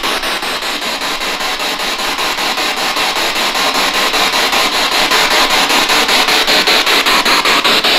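Spirit box (ghost box radio) sweeping through stations: loud radio static chopped about five to six times a second as it jumps from channel to channel.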